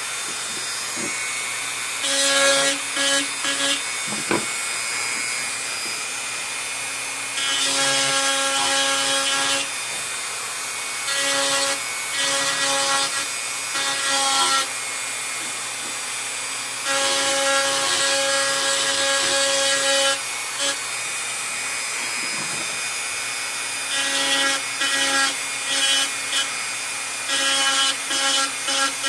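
A motor-driven power tool running steadily, with repeated spells of grinding every few seconds as the work is pressed against it.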